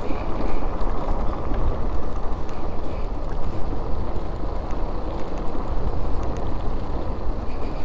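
Motorcycle riding along a rough dirt track: steady engine and tyre noise with wind rushing over the microphone.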